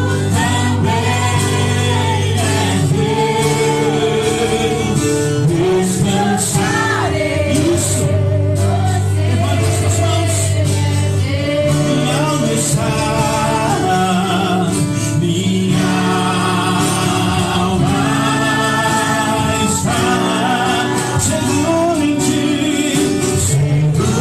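Christian worship song: singing voices, with vibrato, over instrumental accompaniment with long held bass notes.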